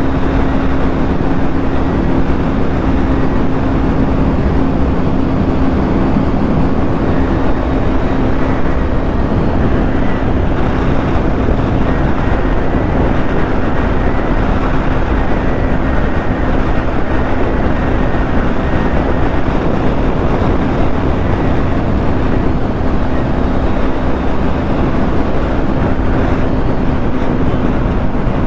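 Motorcycle cruising at highway speed, around 100 km/h: a steady engine hum under constant wind rush over the microphone.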